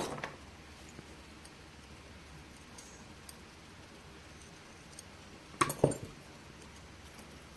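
A few light metallic clicks and clinks from small tools and lock parts being handled, with a louder cluster of clicks about six seconds in, as a spring is worked out of a lock cylinder's pin chamber.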